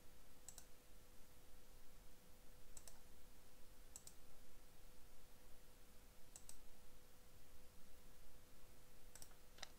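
Sparse, sharp computer clicks, about six spread over the stretch, as the debugger is stepped through and the browser page is refreshed, over faint room hiss and a thin steady hum.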